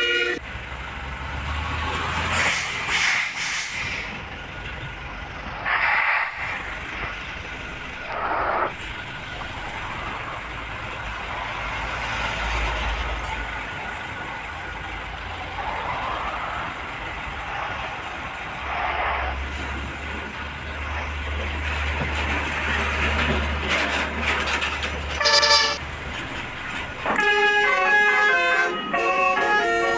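Tour buses passing: low engine rumble under traffic noise, broken by several short blasts of the buses' 'telolet' air horns, the clearest and loudest about 25 seconds in. Music comes in near the end.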